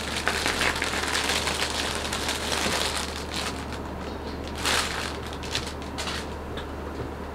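Plastic packaging crinkling and rustling against a cardboard box as hands rummage and unwrap an item, busiest in the first few seconds, with a louder crinkle about five seconds in.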